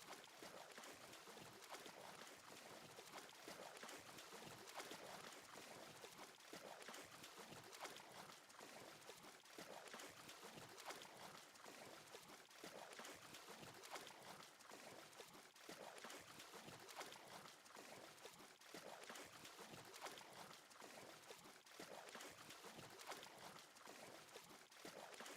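Near silence: a faint, steady hiss flecked with tiny crackles.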